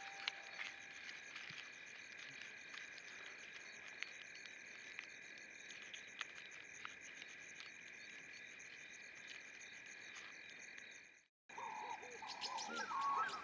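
Steady high trilling chorus of calling small animals, with fast even pulses. It cuts out abruptly for a moment near the end, then comes back with short gliding bird calls over it.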